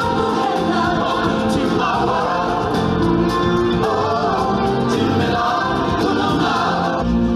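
Live stage-show music: a woman singing into a handheld microphone over backing music and voices, starting abruptly.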